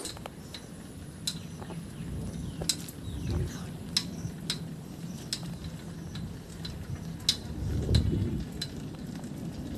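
Bicycle being ridden along a paved lane: scattered sharp clicks and light rattles from the bike at irregular intervals, over a steady low rumble of riding noise.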